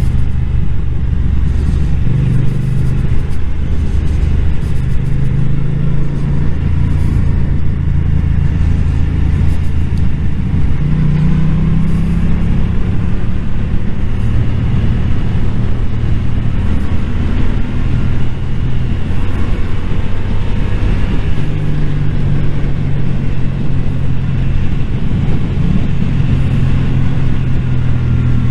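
Yamaha motorcycle's engine and exhaust heard from the rider's seat while riding, over a steady rush of wind. The engine note steps up and down every few seconds with throttle and gear changes.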